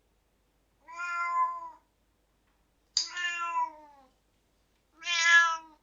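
Siamese cat meowing: three separate drawn-out meows, each under a second, the middle one starting sharp and falling in pitch.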